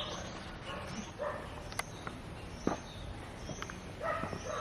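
Birds or insects giving short high chirps about once a second over a steady background hiss, with a couple of sharp clicks in the middle.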